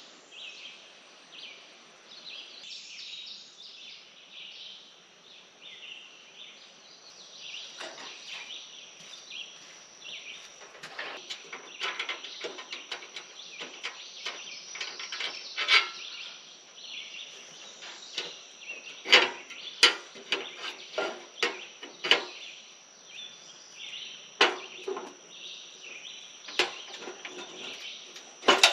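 Repeated sharp clicks and clanks of a Camplux camp stove being handled and unfolded for set-up. They start about ten seconds in and come in quick irregular clusters. Under them runs a steady high chirring chorus of insects and birds in the trees.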